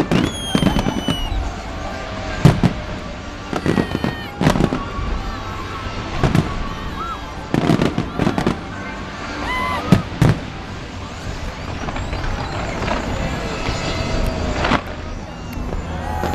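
Large fireworks display: about ten loud bangs at irregular intervals, with crackle between them, over background music and voices.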